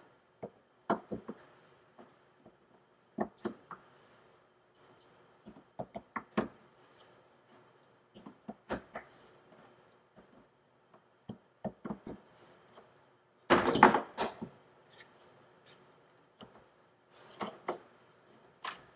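Ratchet with a 14 mm socket turning a gas tank lock-ring tool to unscrew a fuel pump cap: scattered metal clicks and knocks, with a louder clatter lasting about a second near the 14-second mark.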